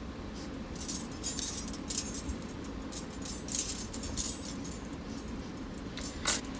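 Paintbrush bristles scratching across watercolor paper in a run of short, quick strokes, then a louder sharp click near the end, over a steady low room hum.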